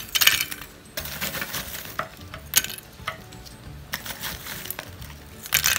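Lumps of wood charcoal being dropped and pressed into a terracotta pot by hand, clinking against each other and the clay walls in scattered knocks. There is a cluster of clinks near the start and another near the end.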